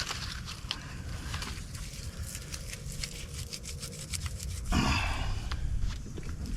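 Dry tulip poplar bark fibers rubbed and pulled apart by hand, giving a run of small crackles and rustles, with one louder rustle about five seconds in.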